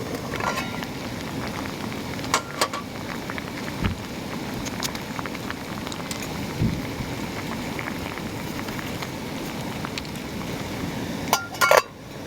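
Wood campfire crackling steadily, with scattered sharp pops, a few louder ones near the start and a quick cluster near the end.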